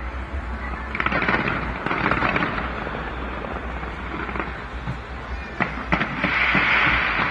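Aerial fireworks going off in dense crackling volleys, thickening about a second in and loudest near the end.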